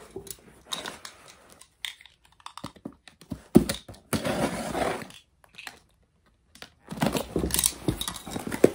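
Plastic wrap and album packaging crinkling and rustling as they are handled and opened, with scattered taps and clicks; the sound drops out completely for about a second two-thirds of the way through.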